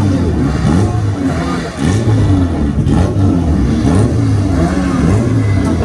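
Drag car engine revving loudly at the start line, its revs rising and falling with brief dips.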